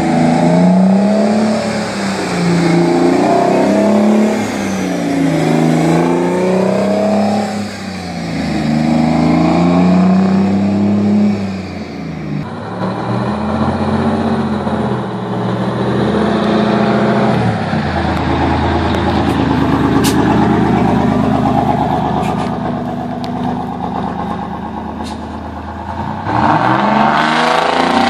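Turbocharged Detroit Diesel 6V-92 two-stroke V6 diesels accelerating under load. In the first half, the engine pitch climbs and drops several times as a truck pulls through its gears. About halfway, the sound cuts to a second truck pulling away, with its pitch rising again near the end.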